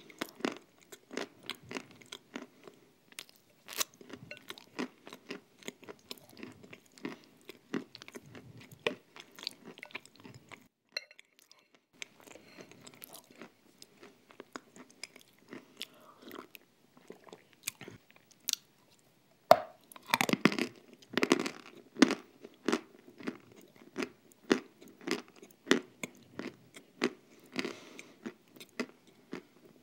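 Close-miked eating sounds of a thick nut cream mixed with crushed nuts: wet chewing, lip smacks and crunching of the nut pieces, in irregular bites. A short lull comes just over a third of the way in, and the loudest chewing is about two-thirds through.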